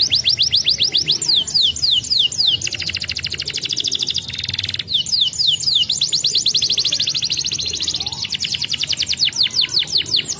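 Domestic canary singing a long unbroken song of rapid repeated downward-sweeping whistled notes. Near the middle the notes speed up into a fast buzzing roll, then return to the sweeping trills.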